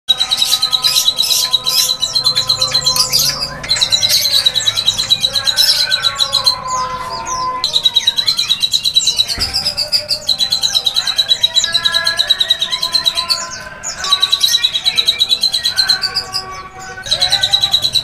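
Songbirds singing: one bird's fast, high trill repeated in phrases of two to three seconds with short breaks, over the whistles and chirps of other birds.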